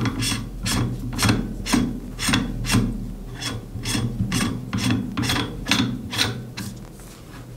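Airsoft rifle suppressor being twisted by hand onto the flash hider, its threads rasping in short, even strokes about three a second that fade near the end.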